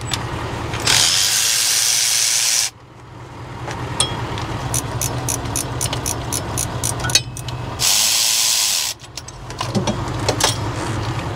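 Cordless electric ratchet running in two bursts of a couple of seconds and about one second, backing out the 13 mm turbo drain line bolts on a John Deere 4.5 L diesel, with a run of quick ratcheting clicks between the bursts.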